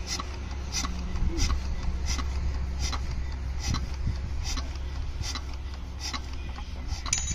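Single-cylinder diesel water-pump engine running steadily with a low hum, and a sharp tick repeating about once every three-quarters of a second.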